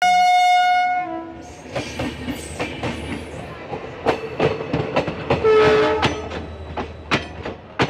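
A train horn sounds loudly for about a second. Then a passing train's wheels clack over rail joints, about three knocks a second, with a shorter, lower tone about five and a half seconds in.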